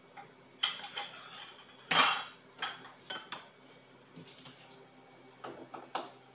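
Metal kitchen utensils clinking and clattering against a pan and dishes: a string of sharp clinks, the loudest about two seconds in, with a few lighter taps near the end.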